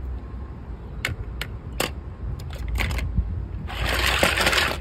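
Small toy cars being handled: several light clicks, then about a second of rustling scrape near the end, over a steady low rumble.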